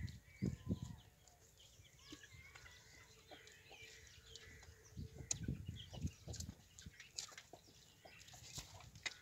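Calf suckling at a cow's udder: irregular soft wet sucking and smacking, with a few low thumps about half a second in and again around five to six seconds.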